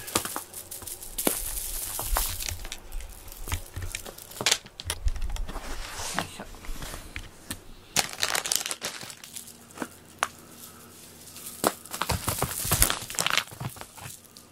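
Irregular crinkling and rustling as a cat plays with a crinkly toy, with a few sharp taps in between.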